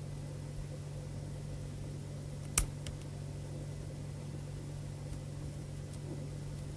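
A single sharp click from lock picks working a brass ABUS 60/50 padlock, about two and a half seconds in, over a steady low hum.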